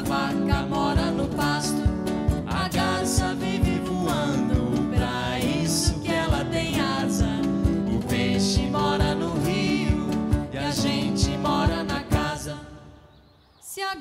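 A live band plays a song: a woman and a man sing over guitar and drums with a steady beat. Near the end the music fades almost to nothing for about a second, then comes back in.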